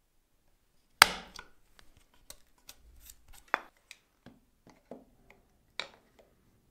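A sharp knock about a second in, then a string of light clicks and taps as a combination square's steel rule is set into a slot in a pine board and adjusted to check its depth.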